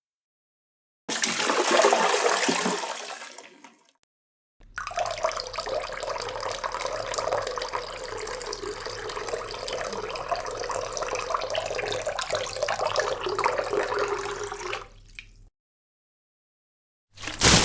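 Water splash sound effects: a sudden splash about a second in that washes away over a few seconds, then about ten seconds of steady running, rushing water, and another sharp splash near the end.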